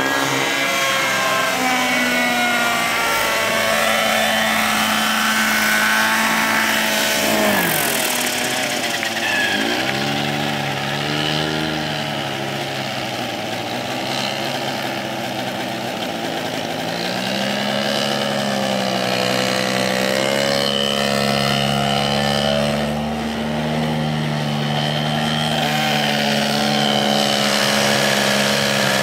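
Small engine of a radio-controlled model helicopter running steadily throughout. Over the first several seconds its pitch rises and falls in flight. About eight seconds in the pitch drops sharply, and the engine then idles on the ground with the rotor turning, its pitch wavering slightly.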